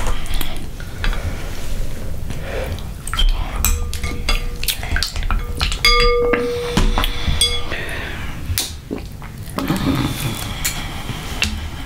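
A metal spoon, a plastic spatula and mussel shells clinking, knocking and scraping against a glass mixing bowl in a quick, irregular run of clicks. About six seconds in, one knock sets the bowl ringing for a second or two.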